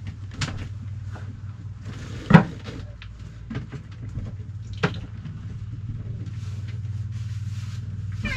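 Scattered knocks and bumps of objects being handled and set down, the loudest a little over two seconds in, over a steady low hum.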